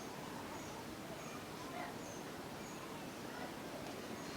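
Faint, steady background noise with a short, high chirp repeating about every two-thirds of a second, like a small bird calling in the distance.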